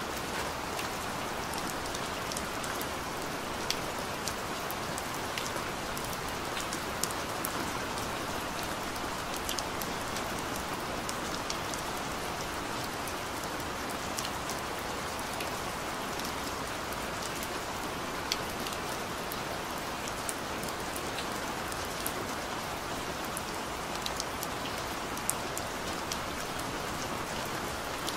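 Steady rain: a dense, even hiss with many scattered sharp ticks of single drops striking.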